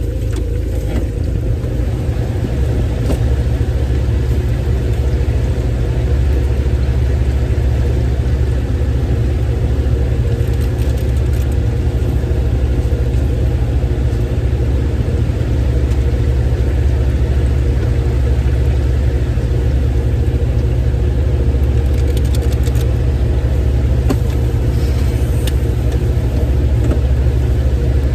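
Steady low rumble of a running motor, with a few faint light clicks on top.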